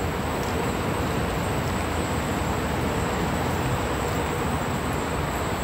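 Steady noise of an open-sided elevated train station platform: an even rumble with a faint steady hum and no distinct events.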